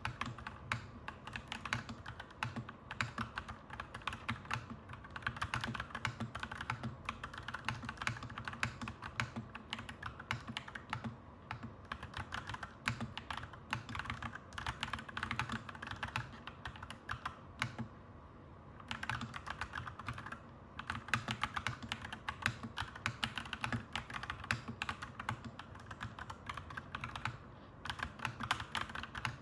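Clacky mechanical keyboard being typed on steadily in quick, irregular keystrokes, with a brief pause a little over halfway through, over a steady low hum.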